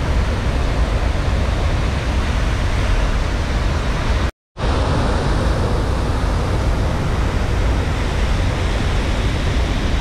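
Athirappilly Waterfall's steady rushing roar, heavy in the low end. It breaks off for a moment about four and a half seconds in, then returns.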